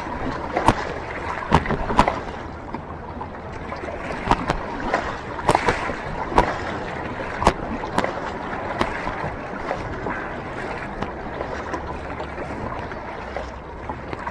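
Water rushing and splashing around a fishing kayak on the sea, broken by sharp, irregular knocks and slaps.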